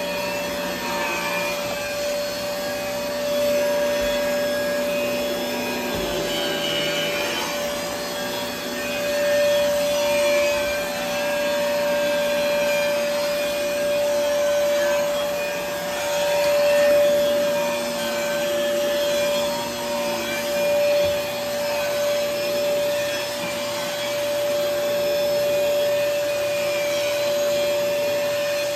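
Fantom Lightning canister vacuum cleaner running with a steady high motor whine, its power nozzle working over the floor. The loudness rises and falls every few seconds with the strokes.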